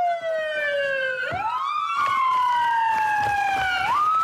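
Two police car sirens wailing out of step with each other. Each falls slowly in pitch and then sweeps quickly back up, one about a second in and the other near the end.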